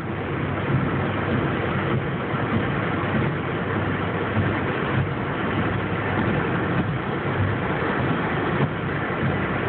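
Steady road noise heard inside a moving car's cabin: engine and tyre rumble, strongest low down, with no changes.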